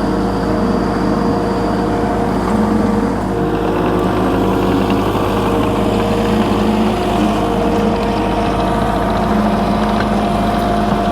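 Takeuchi skid steer's engine running steadily at a constant speed.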